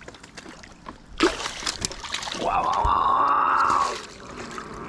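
A hooked catfish thrashing in the shallows: a sharp splash about a second in, with water trickling and sloshing around the rocks. Midway a person lets out a drawn-out voiced sound lasting over a second.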